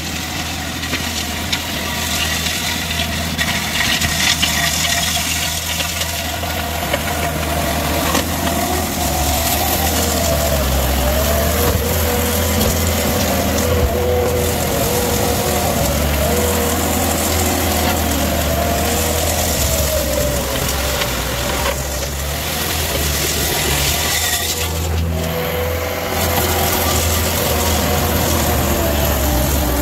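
Cat 299D2 compact track loader's diesel engine running steadily under load while it works a power rake attachment over a gravel driveway, with a whine that wavers in pitch over the low engine drone.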